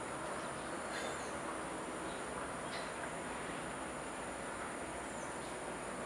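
Outdoor ambience: a steady high-pitched insect drone over an even hiss, with a few short bird chirps, some falling in pitch, about a second in, near the middle and near the end.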